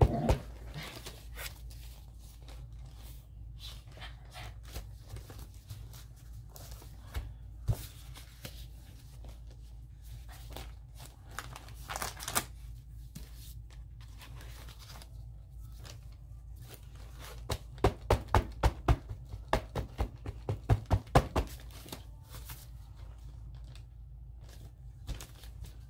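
Magazine paper being handled, torn and crinkled by hand, with scattered light clicks and a run of about a dozen quick sharp taps about two thirds of the way through.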